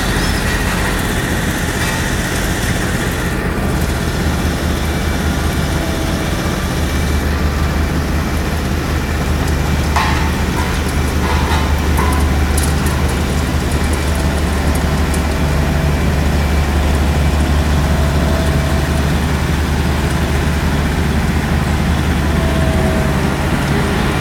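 Heavy engine of roadworks machinery running steadily with a deep drone that grows louder about a quarter of the way in and eases near the end, with a few short knocks near the middle.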